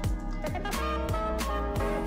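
Background music with a steady beat: deep kick-drum hits under sustained melodic and bass notes.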